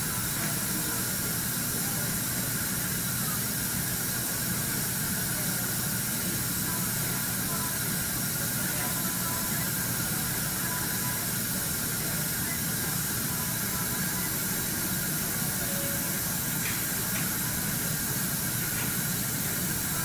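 A steady, even hiss at constant level, with a few faint ticks late on.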